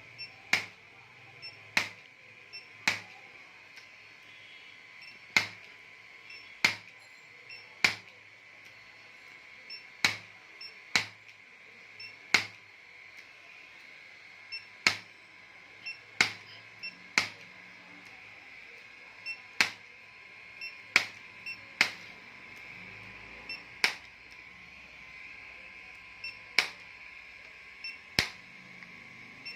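Chiropractic impulse adjusting gun firing sharp clicks at irregular intervals, often two or three in quick succession, about every second or so.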